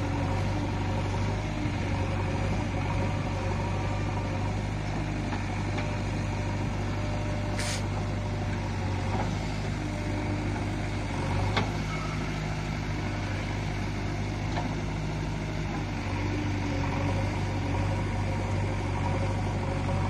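JCB 3DX backhoe loader's diesel engine running steadily while the backhoe digs, swings and dumps soil, its note shifting slightly with the hydraulic work. Two sharp short knocks stand out, one about a third of the way in and one past the middle.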